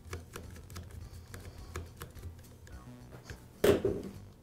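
Small clicks and scrapes of a screwdriver turning a plastic brush cap into a laminate trimmer's motor housing while the motor brushes are reinstalled, then a louder clatter about three and a half seconds in as the screwdriver is set down on the steel workbench.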